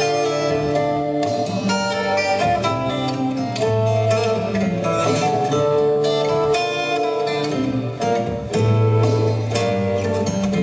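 Instrumental music with long held notes over a bass line that moves to a new note every second or two.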